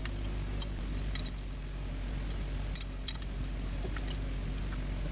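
Steady low machine hum, with scattered light metallic clicks and clinks from hand tools being handled during engine-mount work.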